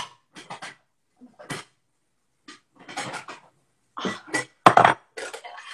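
Crockery clattering as plates and bowls are shifted about in a crowded cupboard: a string of short, irregular clinks and knocks, the loudest about five seconds in.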